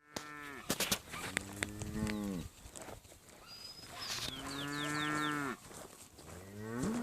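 Deep, drawn-out animal calls. Two long calls each drop in pitch at the end, and a third rises near the end. A few short high chirps come about four seconds in, and there are sharp clicks near the start.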